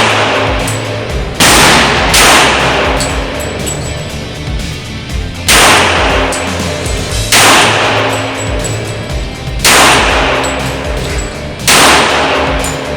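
Six pistol shots from a .45 ACP 1911, the Rock Island Armory Rock Ultra FS, each with a ringing echo trailing off: two shots close together, then four spaced about two seconds apart. Background music plays underneath.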